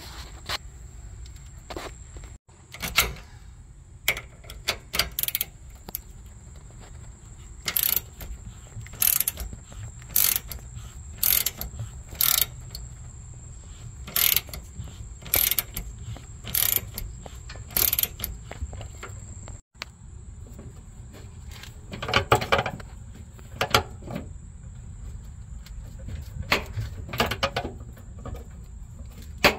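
Socket ratchet wrench turning the ball-joint nut on a Honda Accord's rear upper control arm, its strokes clicking in a steady run about once a second, followed by a few louder metal clinks of tools on the suspension.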